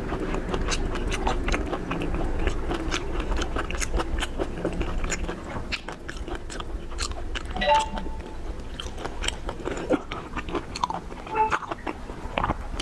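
Close-miked chewing and biting into shellfish, with many sharp clicks and crackles of shell through the mouthfuls.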